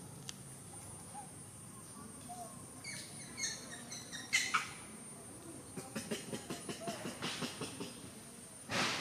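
Scratching and rustling as macaques shift about, with a few short high chirps a little past the middle and a sharp rustle just after them. A steady high insect whine runs underneath.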